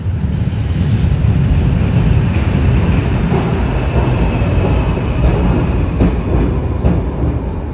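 A Vienna U-Bahn train rumbling along an underground station platform, with the heavy low rumble echoing off the tiled walls. A steady high-pitched whine joins about three seconds in and holds.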